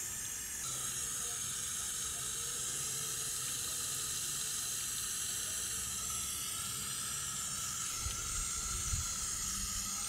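Garden hose spray nozzle on its shower setting running steadily, water hissing over a fern's root ball and splashing onto concrete as it soaks the rock-hard, dried-out potting soil.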